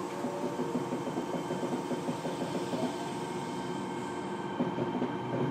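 Fukuoka City Subway 1000N-series train heard from inside the car while running. Steady wheel-on-rail rumble with a fine rattling rhythm and the whine of the traction equipment. A short rising tone comes about three seconds in.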